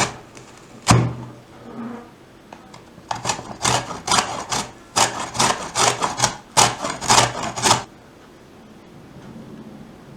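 Food preparation in a kitchen: one heavy knock about a second in, then a run of about a dozen quick knocks or strokes, two to three a second, which stop a little before the end.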